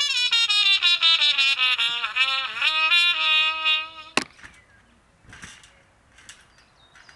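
A musical instrument playing one long note that slides down in pitch in steps, wobbling as it falls, for about four seconds, ending with a sharp click; after that only faint scattered sounds.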